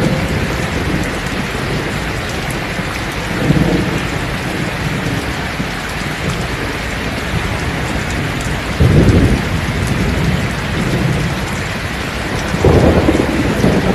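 Heavy rain pouring steadily, with rolls of thunder rumbling over it: a short one about three and a half seconds in, the loudest starting suddenly about nine seconds in, and another near the end.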